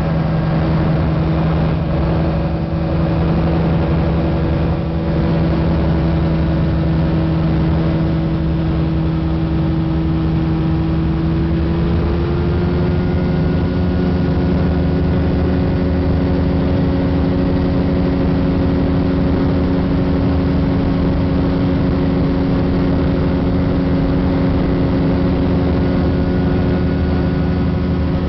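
Flightstar ultralight aircraft's engine running steadily in flight, heard from the cockpit. About twelve seconds in, its pitch steps up slightly as engine speed rises, then holds.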